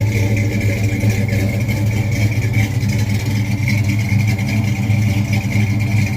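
Engine running steadily at an even speed, with a strong low hum.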